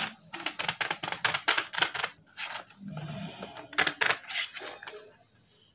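Plastic blister pack being handled: quick irregular clicks and crackles, in two busy spells and thinning near the end.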